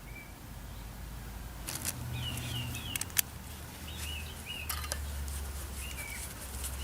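A small bird chirping in short repeated phrases of quick, dipping notes, with a few sharp metallic clicks of bolts and tools being handled, the sharpest about three seconds in, over a low steady hum.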